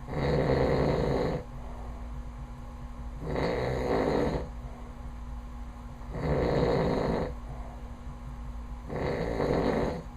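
A sleeping man snoring: four loud snores of about a second each, one every three seconds or so, with the even rhythm of deep sleep breathing.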